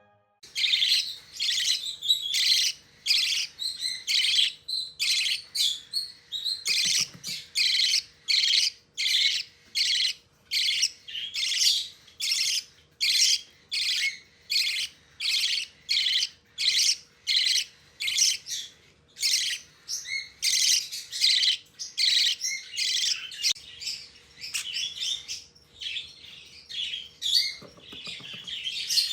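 Small cage birds chirping in a fast, regular series of short high calls, nearly two a second.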